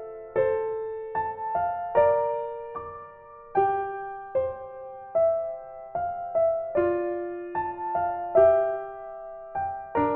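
Background music: a gentle solo piano melody of single struck notes and chords, each fading out after it is played.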